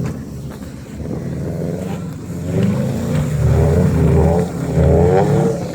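Subaru flat-four engine revving, its pitch swinging up and down as the throttle is worked, louder from about two and a half seconds in.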